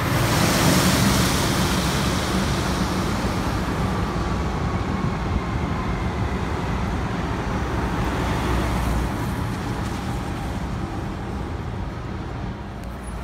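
Docklands Light Railway train running along an elevated viaduct. Its rushing noise is loudest about a second in and slowly fades as the train draws away, over a low hum of road traffic.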